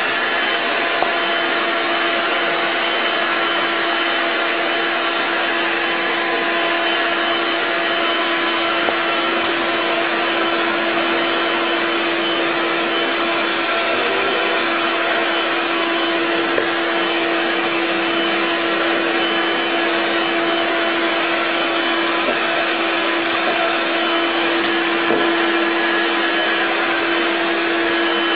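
Stick vacuum cleaner running steadily: an even motor hum over a rushing hiss of air, unchanging throughout.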